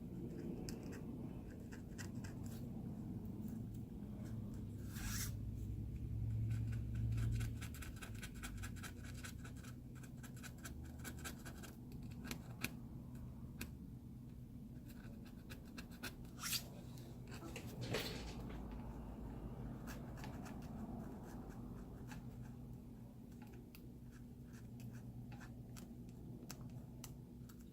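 Flat screwdriver blade scraping and peeling residue off the inside of a ZTE A2017U phone: a long run of small scratching clicks, with a few sharper clicks along the way.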